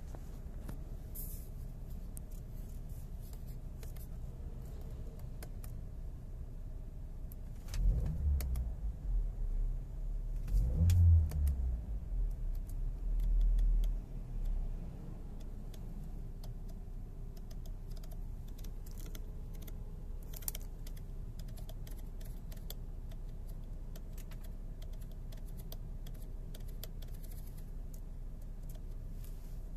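Steady low hum inside a parked car's cabin, with scattered light clicks and a stretch of louder low rumbling thumps from about 8 to 15 seconds in.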